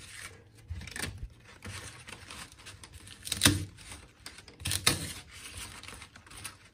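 Utility knife blade slicing through tape on cardboard, and cut strips of tape being peeled and torn off the board, with rustling between. Short, sharp scraping tears stand out about three and a half seconds in and again near five seconds.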